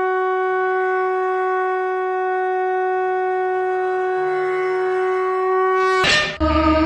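A conch shell blown in one long, steady, unwavering note that breaks off about six seconds in. Louder music with chanting follows.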